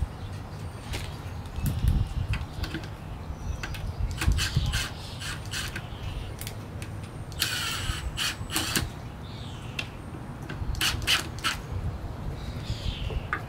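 Sharp clicks and knocks of a wooden birdhouse being handled and fitted onto a wooden post, with a crow cawing in the background.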